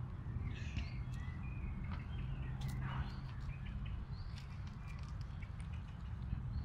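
Birds chirping and calling in short, scattered notes, over a steady low background rumble.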